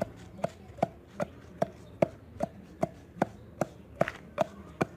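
Knife chopping on a cutting board in a steady rhythm, about two and a half chops a second, each with a short hollow knock.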